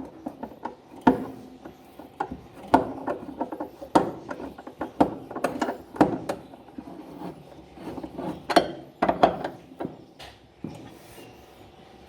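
Hand tool tightening a bolt on the upper crossbar of an Electrolux LTE12 washing machine, driving it down to torque: an irregular run of sharp clicks, knocks and scraping.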